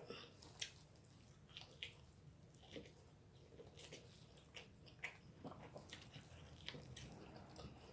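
Faint chewing and eating sounds: soft wet mouth clicks and smacks scattered every second or so.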